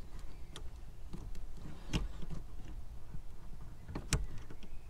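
Small plastic clicks and knocks with rustling handling noise as fingers work a wire connector onto a Mercedes W204 tail light's plastic backing plate. A few sharp clicks stand out, about half a second, two seconds and four seconds in, the last the loudest.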